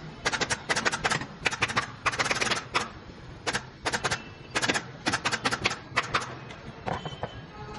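Pneumatic upholstery staple gun firing staples into a sofa frame: sharp clicks in quick runs of three to five, with short pauses between the runs.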